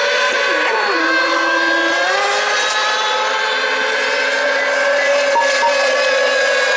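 Several radio-controlled racing boats' small two-stroke engines screaming together at high revs, their tones overlapping; one boat's pitch drops about half a second in and climbs again about two seconds in as it slows and accelerates back to speed.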